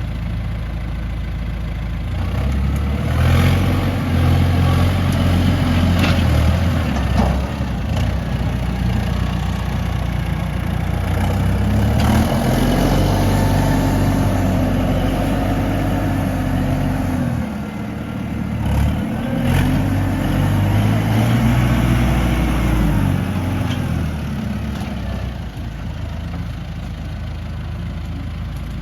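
Heavy diesel engine of earthmoving machinery running, revving up under load and dropping back toward idle three times, with a few sharp knocks in between.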